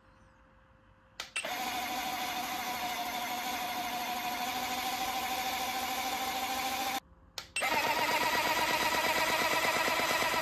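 Gemmy dancing hamster toy's small electric motor and gear train, driven well above its battery voltage from a bench power supply, starts about a second in and runs with a steady whirring whine. After a short break near the end it runs louder and faster at 13 volts, with a rapid, even rattling clatter.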